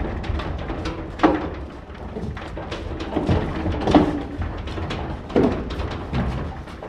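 Holstein dairy cows walking through a barn, their hooves knocking and scuffing on concrete and metal, with a handful of louder knocks at irregular moments.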